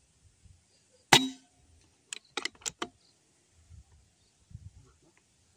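Shot from a Demit 88 Billy Junior PCP air rifle about a second in: a single sharp crack with a short ring. About a second later comes a quick run of four or five metallic clicks as the bolt is worked to load the next pellet.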